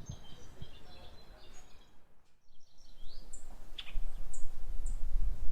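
Wild birds calling outdoors: faint high chirps, then short, high, downward-sliding notes repeated about once a second in the second half. A low rumble on the microphone starts about four seconds in.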